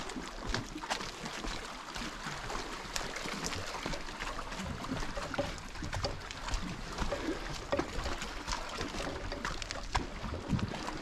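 Small sea waves lapping and sloshing against shoreline rocks, with irregular little splashes and trickles throughout.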